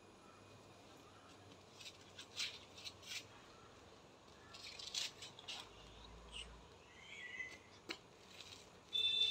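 Faint outdoor background with scattered short high-pitched chirps, typical of birds, and one short sound that rises and falls about seven seconds in. A louder burst with steady high tones comes near the end.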